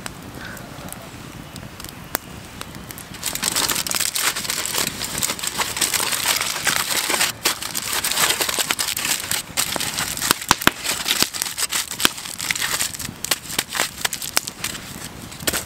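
Aluminium foil being crumpled and crinkled by hand as it is wrapped around a cut potato. It starts about three seconds in and runs loud until near the end. A wood campfire crackles with sharp ticks underneath.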